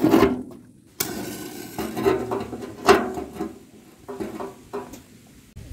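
Dry husks being handled, dropped and shuffled in a rusty sheet-metal box stove, with a series of sharp knocks and rattles against the metal.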